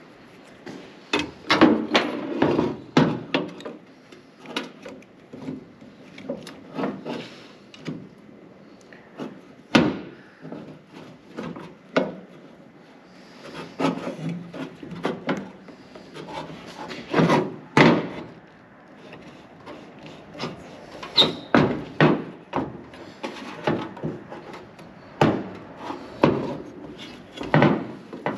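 Irregular knocks, clacks and rubbing as the parts of a car's brake and clutch pedal assembly are handled and fitted together with their bushings, some strikes sharp and loud.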